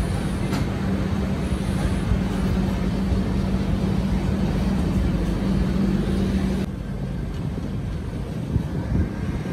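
Running noise of an Indian Railways passenger train heard inside the coach: a steady rumble with a constant low hum. About two-thirds of the way through it changes abruptly and drops slightly.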